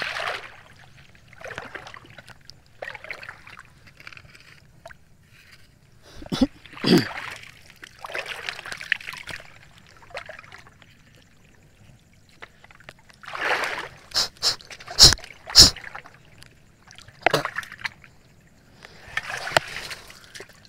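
Shallow river water splashing and sloshing in irregular bursts every second or two as someone wades through it. Sharp knocks come about six seconds in and twice around fifteen seconds.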